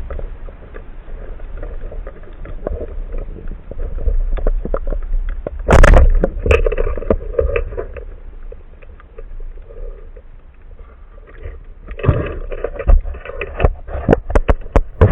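Water sounds picked up underwater by a diver's camera: a steady low rumble with scattered clicks, a loud splashing burst about six seconds in, and a rapid run of clicks and splashes near the end.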